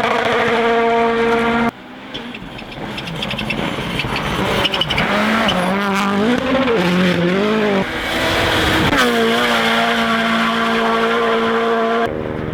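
Rally cars' engines running at high revs, a steady high note in some stretches and revs swinging rapidly up and down in others, with abrupt switches between different cars several times.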